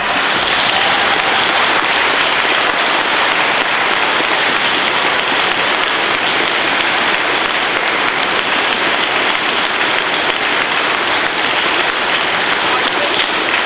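An audience applauding: a long, steady round of clapping with no break.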